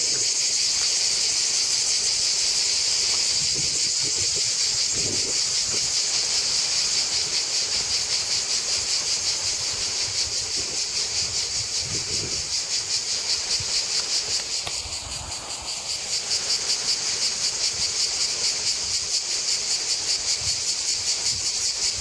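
Cicadas singing in a continuous high-pitched chorus with a fast, even pulsing. The chorus dips briefly about two-thirds of the way through, then resumes.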